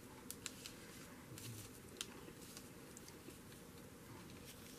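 Faint crafting handling sounds: a few short soft clicks and light rustling as crochet thread is handled.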